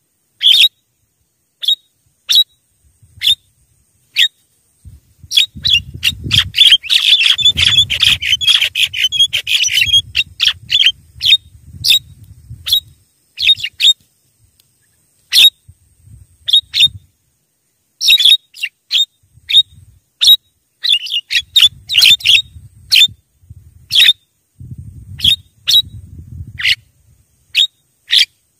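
Javan myna calling: sharp, clipped chattering notes in irregular bursts, with a dense run of rapid chatter from about five to thirteen seconds in. A low rumble sits under some of the busier stretches.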